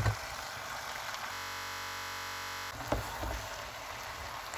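Cabbage stew sizzling in a frying pan while being stirred, with a wooden spoon knocking against the pan at the start and again about three seconds in. In the middle, for about a second and a half, the sizzle gives way to a flat, unchanging buzz.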